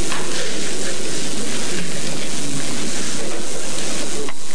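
Steady, loud hiss of an old tape recording, with faint, indistinct sounds beneath it.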